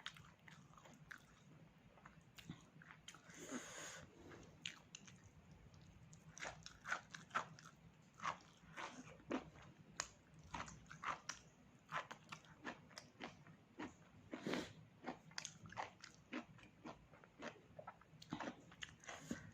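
A person chewing and biting pork close to the microphone: irregular soft crunches and wet mouth clicks, with a faint steady hum underneath.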